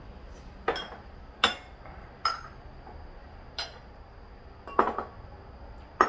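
Small white bowls clinking against one another as they are gathered up and stacked: about six short, sharp clinks spaced out, with a quick double clink near the end.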